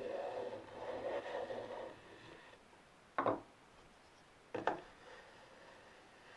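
Hand tool working wood: a scraping, rasping stroke for about two seconds, then two sharp knocks on wood, about a second and a half apart.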